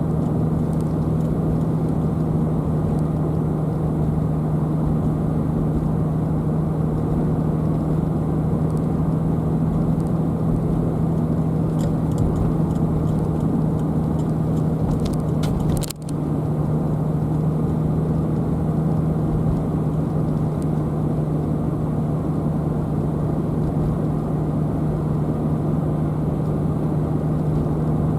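A car driving along at steady speed: constant road and engine noise with a steady low hum. A few faint clicks come in just before the middle, and the sound drops out for an instant about sixteen seconds in.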